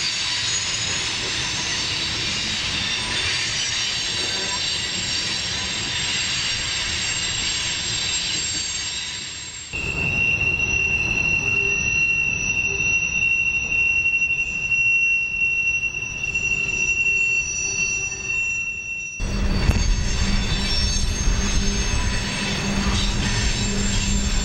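Freight cars rolling past with their steel wheels squealing on the rails over a rumble. The sound changes abruptly twice: about ten seconds in to a single steady high squeal, and near twenty seconds to a heavier rumble with squeal again.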